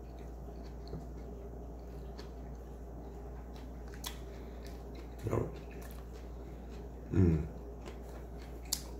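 A person chewing a mouthful of turkey sandwich, with small wet mouth clicks over a steady low room hum. There are two brief low vocal sounds, about five and seven seconds in.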